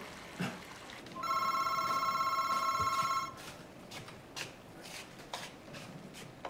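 Cordless home telephone ringing: one electronic, warbling ring about two seconds long, followed by a few faint knocks.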